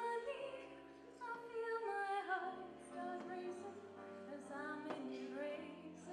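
Live pop song: several voices singing together, female voices prominent, over sustained keyboard notes.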